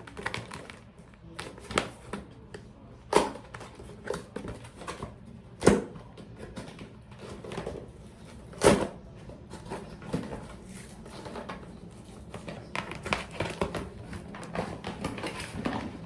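A camera's product box and packaging being opened and handled by hand: a string of sharp clicks and knocks at irregular intervals, the loudest about nine seconds in, with denser small rustling handling noises near the end.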